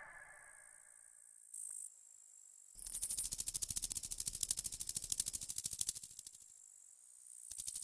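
Cartoon millipede scuttling inside a metal drink can: a fast, dry rattling clatter of many tiny taps. It starts about three seconds in, stops for a moment near the end, then starts again.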